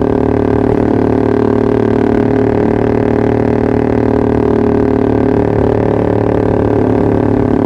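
Yamaha R15 V3's single-cylinder engine idling at a steady speed through a Pro Liner aftermarket exhaust. The note holds even and unchanging throughout.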